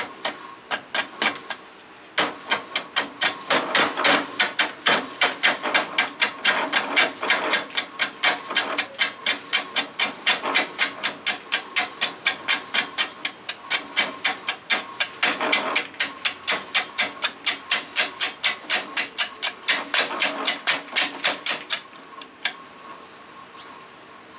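5/8-inch bowl gouge taking an interrupted cut on an out-of-balance 18-inch maple burl turning at about 250 RPM on a Shopsmith lathe: the tool strikes the high spots in an even train of knocks, about four a second, over a steady hum. The cutting stops near the end.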